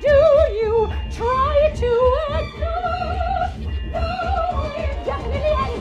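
A high voice singing a melody in an operatic style, with wide vibrato on held notes and sliding phrases.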